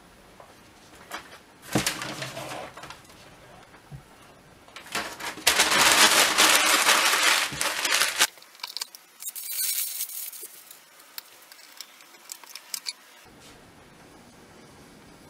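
Handling noises from a small wooden portable gramophone case being set down and opened: a few knocks, a dense scraping rustle lasting a couple of seconds in the middle, then light metallic clicks as its crank and soundbox are taken out.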